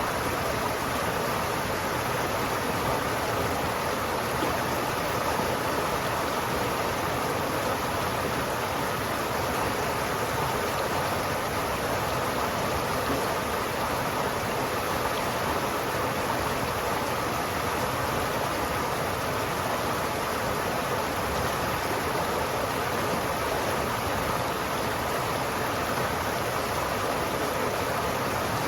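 River water flowing steadily, a continuous even rush with no breaks.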